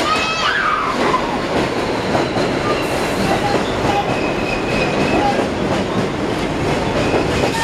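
R62A subway train pulling into the station, its cars rolling past with a steady rumble and wheels clacking over the rail joints. Thin high squeals come and go, one just after the start and one about four seconds in.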